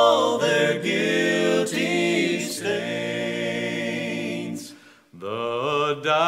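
Southern gospel vocal quartet singing in close harmony, holding long chords, with a brief break for breath about five seconds in.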